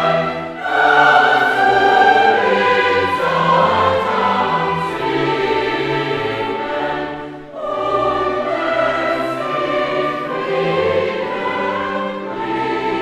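A choir singing a slow piece in long held chords, with short breaks between phrases near the start and about halfway through.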